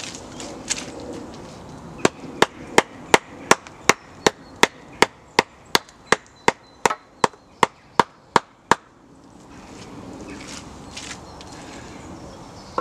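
A hand tool striking wood: about twenty sharp, evenly spaced knocks, roughly three a second, starting about two seconds in and stopping abruptly near nine seconds.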